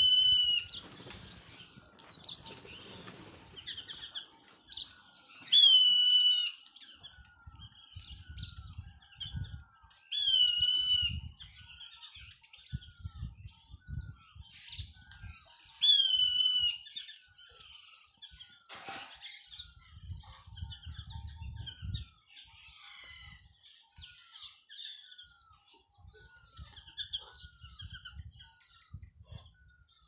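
A flock of small birds chirping busily, with a short call repeated about once a second. A louder, ringing call falling in pitch sounds four times, about five seconds apart, in the first half. Low rumbling bursts come and go underneath.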